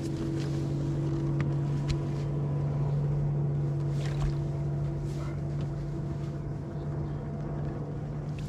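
Bow-mounted electric trolling motor on a bass boat humming steadily at a constant speed, under light wind and water noise. Its higher tone fades out about seven seconds in.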